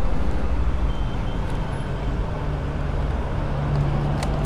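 BMW S1000RR's inline-four engine idling steadily with a low rumble.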